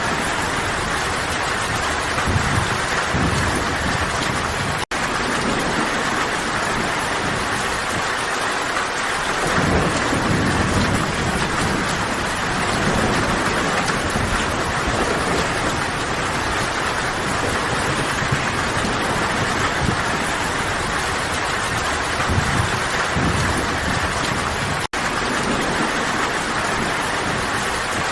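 Steady heavy rain hissing, with low rumbles of distant thunder swelling several times. The sound drops out for an instant twice.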